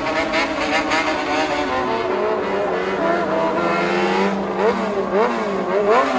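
Several loud engines of modified gang vehicles revving on a street. The pitch holds steady at first, then swings quickly up and down in repeated blips from about four and a half seconds in.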